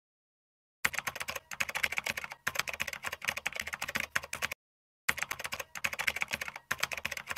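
Rapid computer-keyboard typing clicks, used as a sound effect for text being typed out. They start about a second in, stop briefly after about four and a half seconds, then resume.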